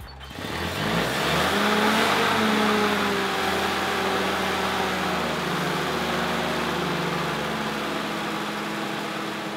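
1948 Willys CJ-2A's Go Devil four-cylinder flathead engine catching and revving up in the first second or two, then running fast and steady, its pitch easing slightly down as it settles: the freshly rebuilt engine is running.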